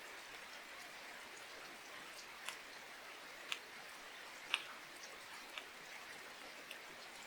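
Steady light rain hiss with single drops ticking sharply on a nearby surface every second or so, the loudest about halfway through.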